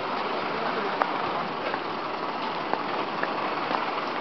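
Outdoor street ambience: a steady hiss with faint, scattered light ticks.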